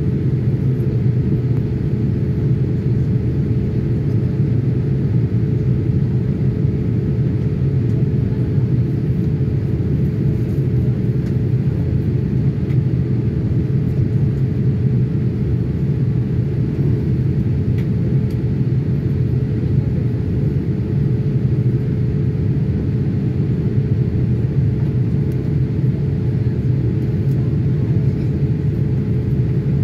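Steady cabin noise of a Boeing 787 Dreamliner in flight: a low, even rumble of engines and airflow, with a constant hum running through it.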